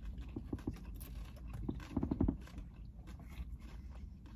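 Snacking noises inside a car: quiet chewing and crunching of chips with small crinkles and taps, over a low steady cabin rumble. A short run of louder pulses comes about two seconds in.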